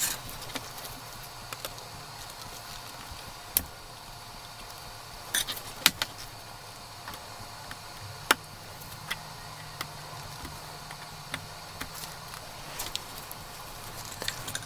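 Scattered sharp clicks and small taps of tools and small parts being handled during a smartphone repair, over a steady low hum.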